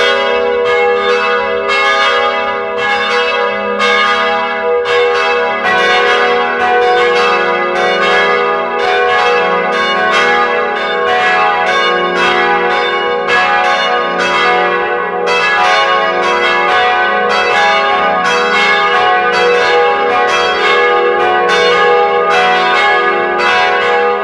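Church bells ringing in a quick, steady sequence of strikes, about three a second, each bell's tone ringing on over the next.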